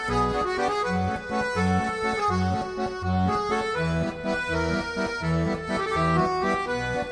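Background music: an accordion tune over a steady, repeating bass beat.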